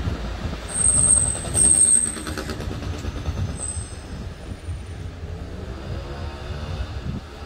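City street traffic: a motor vehicle running past close by with a low rumble, and a sharp high-pitched squeal twice in the first few seconds.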